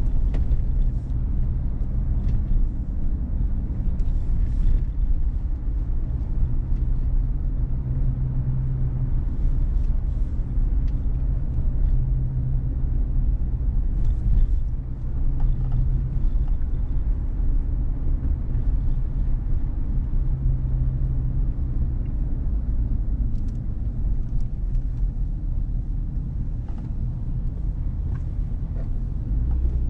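A car driving on city streets: a steady low rumble of road and engine noise, with a faint engine hum that rises and fades now and then and a few light clicks.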